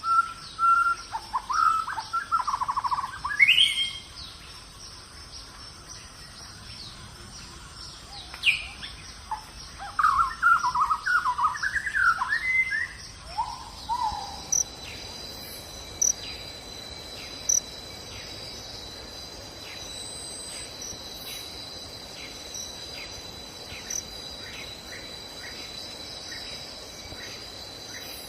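Birds calling in short chirps and trills for the first half, then a steady high insect drone with evenly spaced clicks takes over.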